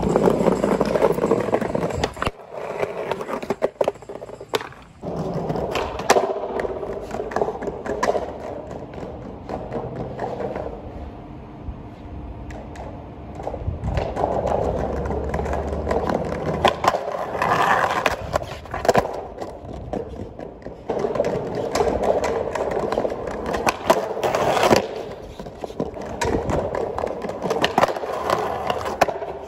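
Skateboard wheels rolling over paving and concrete, broken by repeated sharp clacks and knocks of the board during trick attempts.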